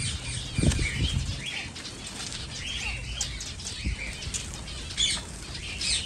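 Small finches fluttering their wings, with scattered short high chirps and a couple of low thumps, one a little under a second in and one at about four seconds.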